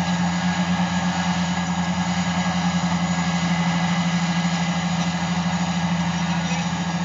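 Engine running steadily at an even speed with a strong, constant low hum, heard from inside a vehicle cab.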